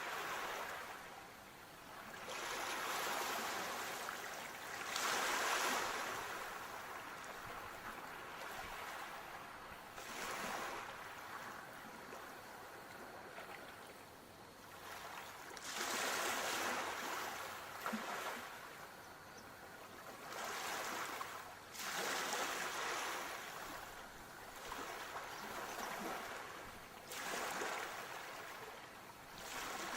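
Sea surf: waves breaking and washing in, each swelling and fading every three to five seconds.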